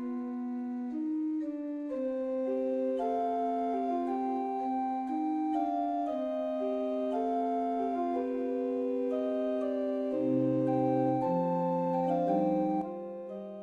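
Background music: a slow melody over sustained, held chords with an organ-like tone, fading out near the end.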